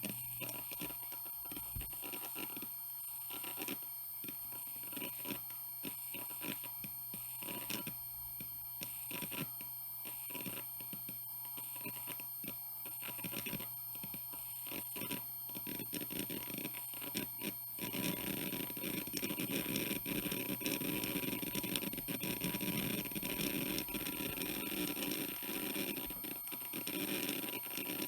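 Hitachi Deskstar 7k80 80GB IDE hard drive spinning, with its heads seeking as Windows 7 installs onto it. Scattered seek clicks over a steady spindle whine turn, about two-thirds of the way in, into louder, dense, continuous seeking.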